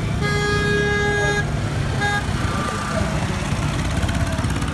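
A vehicle horn honks: one long toot of a little over a second, then a short toot about two seconds in, over a steady low engine rumble from the surrounding traffic.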